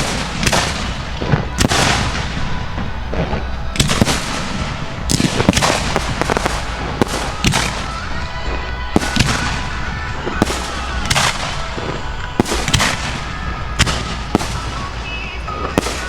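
Fireworks display heard up close: a rapid, irregular run of sharp reports and booms, a few each second, over a continuous rumble.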